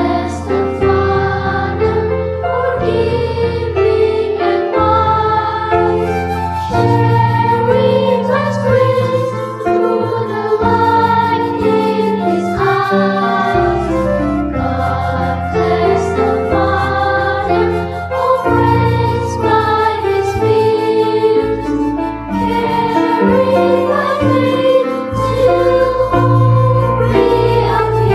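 Children's choir singing a slow hymn-like song in English ("God bless the father...", "Carried by faith 'till hope reappears") over instrumental accompaniment with sustained low notes.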